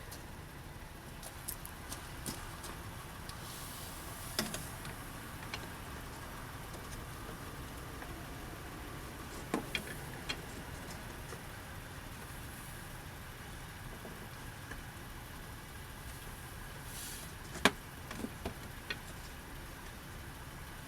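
Scattered light clicks and knocks of tools and parts being handled, with one sharper knock late on, over a steady low rumble.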